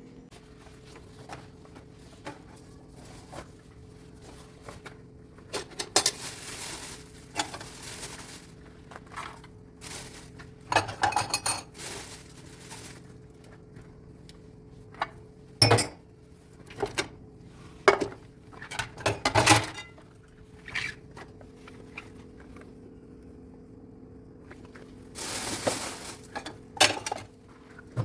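Dishes and cutlery clinking and clattering as they are handled and washed by hand, in scattered sharp knocks and clinks with a few longer rushing bursts in between.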